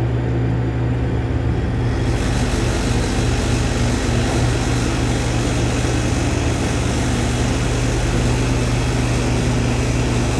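Hydraulic elevator car travelling: a steady low hum with a rushing noise that comes in about two seconds in and cuts off near the end as the car stops.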